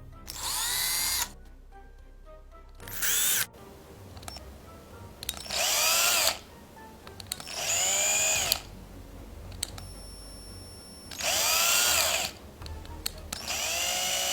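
A power drill run in six short bursts of about a second each, its whine dipping and climbing in pitch in each burst as the motor speeds up and slows.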